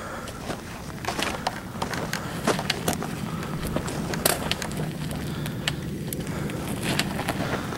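Irregular sharp cracks of airsoft guns firing single shots, over a rough low rumble of wind and movement.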